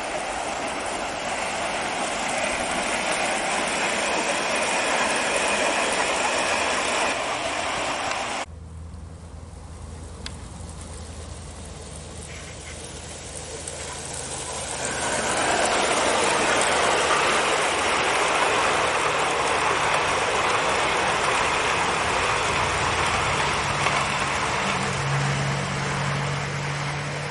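A 10mm-scale model of a Stanier Coronation Pacific locomotive and its coaches rolling along a raised garden track, giving a steady rattling rush of wheels on rail. The sound drops suddenly about eight seconds in and builds up again a few seconds later as the train comes close.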